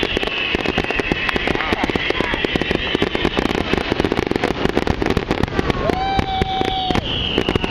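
Fireworks finale: a dense, unbroken barrage of shells bursting many times a second, with falling whistles overhead and one steady whistle about six seconds in.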